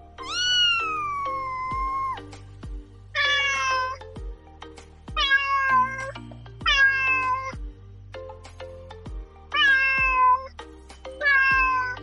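A cat meowing six times over background music with a beat. The first meow is long, about two seconds, and the others are shorter, each sliding down in pitch.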